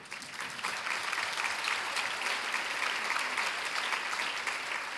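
Audience applauding, building up within the first second and thinning out near the end.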